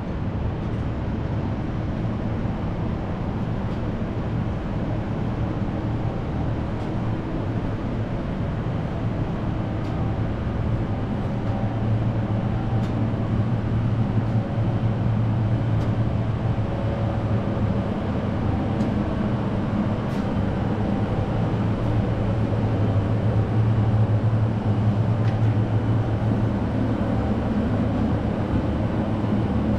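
Steady low mechanical hum of city background noise, with a few overtones, growing somewhat louder partway through. A few faint clicks sound over it.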